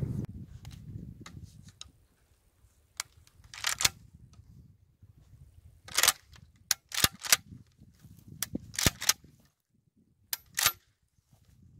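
Charles Daly 301 Tactical 12-gauge pump-action shotgun being handled: scattered sharp metallic clicks and clacks of shells going into the magazine and the pump action being worked, with a quick run of clacks in the middle and two more near the end.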